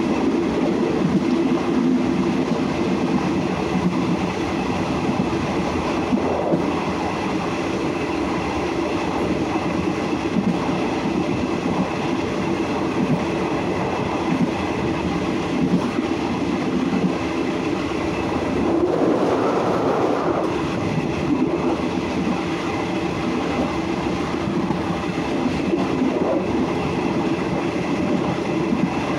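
Passenger train running along metre-gauge track, heard from the rear of the last carriage: a steady rumble and rattle of wheels on rails. A brief swell, louder and brighter, comes about two-thirds of the way through.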